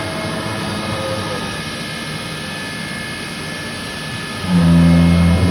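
Steady machine running with several held high whining tones; about four and a half seconds in, a much louder low hum starts.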